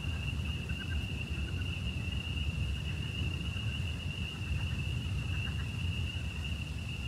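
Night-time outdoor ambience: a steady, unbroken high-pitched insect chorus over a low rumble of wind on the microphone.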